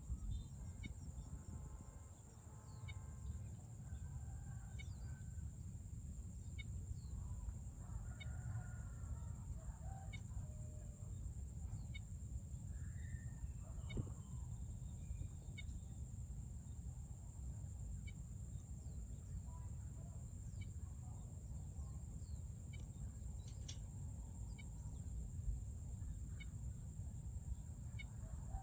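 Domestic chickens clucking and calling now and then, over a steady high-pitched insect drone and a low rumble.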